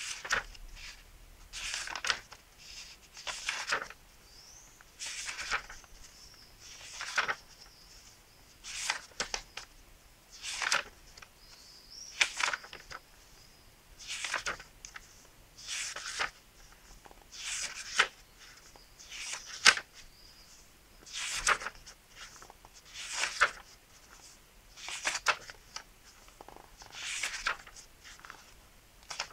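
Pages of a paperback book being turned by hand, a papery rustle roughly every two seconds.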